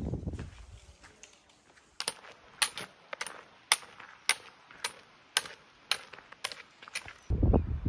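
Trekking pole tips clicking on a gravel and stone track, about two sharp clicks a second. A gust of wind hits the microphone near the end.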